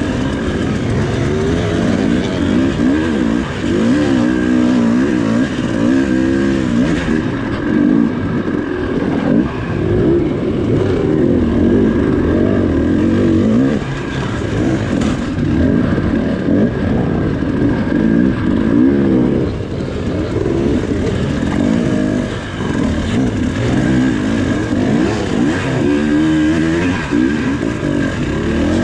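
Dirt bike engine heard from on board, revving up and down in repeated throttle bursts as it picks its way over rock, with a steady high tone behind it.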